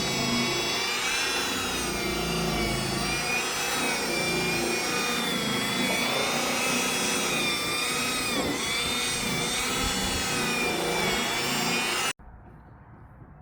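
Electric buffer polishing paint with compound, its motor whine wavering and dipping in pitch as it is loaded against the panel. It cuts off abruptly near the end.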